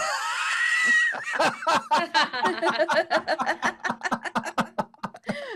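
Laughter in reaction to a punchline: a high-pitched squeal in the first second, then a rapid run of giggles, about five a second.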